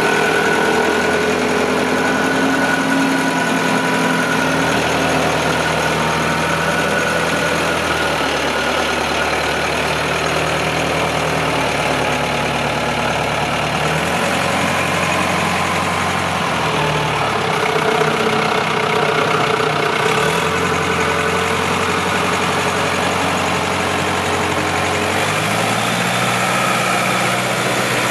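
Allis-Chalmers 840 wheel loader's engine running as the machine is driven, its speed stepping up and down every few seconds.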